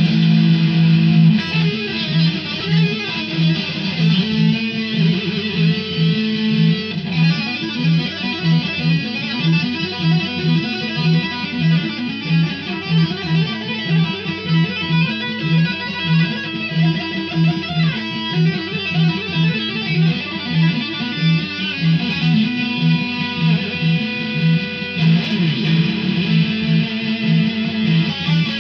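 Electric guitar, a Stratocaster-style instrument, playing a fast shred lead solo of quick runs through the scales. Under it runs a steady low beat pulsing about twice a second.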